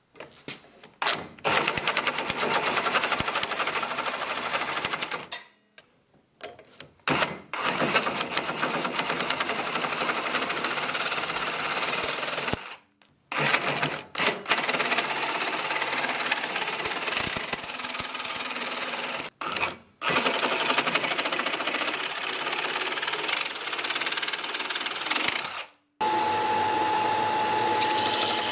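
Reciprocating saw with a 12-inch carbide metal-cutting blade cutting through wooden handle scales on a steel cleaver tang. It runs in four long stretches with short stops between. Near the end it gives way to a belt sander running with a steady hum.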